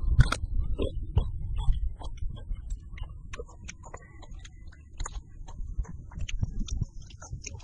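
Close-miked chewing of meat, with irregular wet mouth clicks and smacks, a loud cluster of them at the start, over a low rumble.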